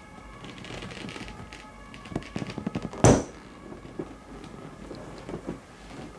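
Inflatable vinyl pool toy bursting with a single loud bang about three seconds in, as a screwdriver is pushed through its skin, with a brief rush of escaping air right after. Crackling handling noise of the stretched vinyl leads up to the bang.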